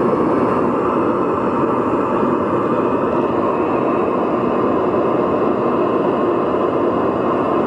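Pink noise test signal played through an amplifier and speaker driver: a steady, even rushing noise, strongest in the lower middle range.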